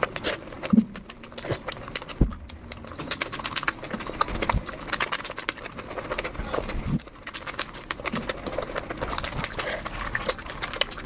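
Close-up eating sounds: wet chewing, lip smacks and mouth clicks coming in quick, irregular succession, with a few low knocks.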